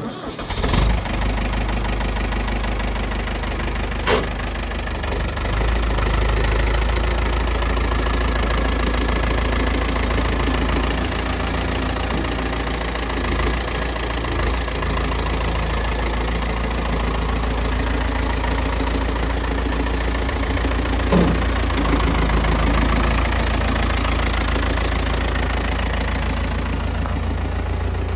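Ford 5000 tractor engine running steadily as the tractor is driven slowly, with two brief sharp knocks, one about four seconds in and another about twenty-one seconds in.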